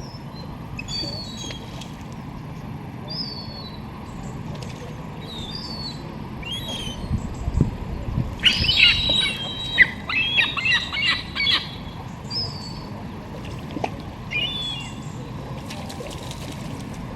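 Birds chirping and calling in short, repeated high notes, with a busier flurry of calls about eight to eleven seconds in, over a steady low background rumble.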